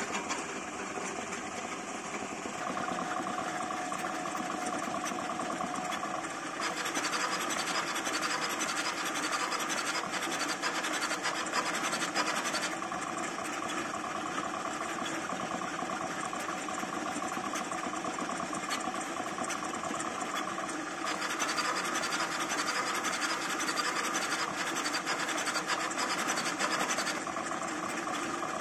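Home-built CoreXY 3D printer printing PLA at very high speed, up to 1000 mm/s with 40,000 mm/s² acceleration: its stepper motors and belts give a continuous buzzing whine with a rapid flutter as the print head changes direction. The pattern shifts every several seconds as the moves change.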